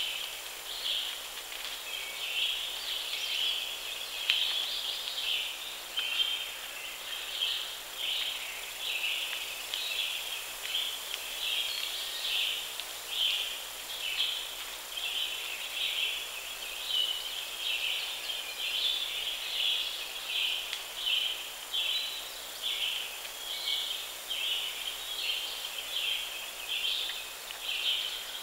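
Outdoor chorus of calling animals: short high-pitched pulses repeating about one to two times a second, steady throughout, with a faint steady high whine above them.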